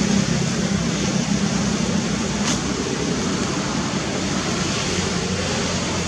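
Steady background noise, an even hiss over a low hum, with a faint click about two and a half seconds in.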